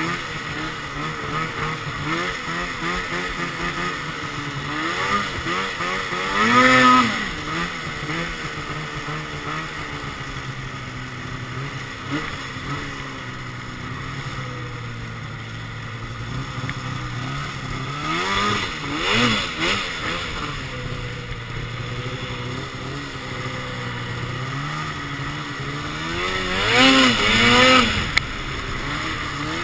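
Arctic Cat XF 800 snowmobile's two-stroke twin, fitted with a Sno Stuff high-performance silencer, running under way with its pitch rising and falling. It revs hard three times: about a quarter of the way in, about two-thirds in, and near the end.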